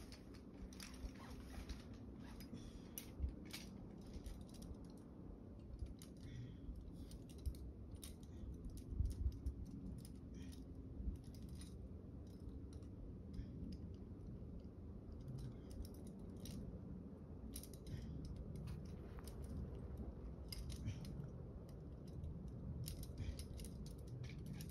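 Faint, irregular clicks and light metallic clinks of climbing hardware and rope being handled at the belay, over a low rumble of handling noise.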